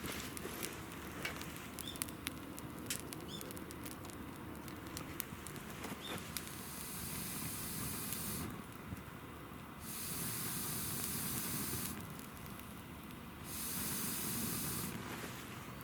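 Wood fire crackling with sharp pops. Then come three spells of loud hissing, each about two seconds long, that start and stop abruptly.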